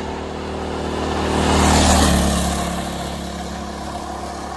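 Go-kart's small engine running at speed as the kart drives past. It grows louder as the kart approaches, drops in pitch as it passes about two seconds in, then fades as the kart moves away.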